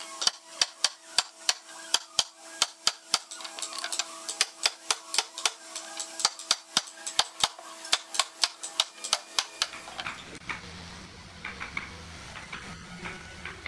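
Hammer tapping the edge of a hardwood frame: a quick run of sharp knocks, about three a second. About ten seconds in the knocking stops and a low hum is left.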